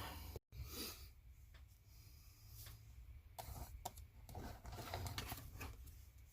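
Faint scattered clicks and short rustles of small wire connectors being handled and fitted onto speaker wires, over a low steady hum.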